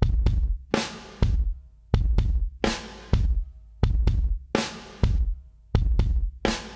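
Background music with a steady drum-kit beat: kick drum and snare hits about every 0.7 s.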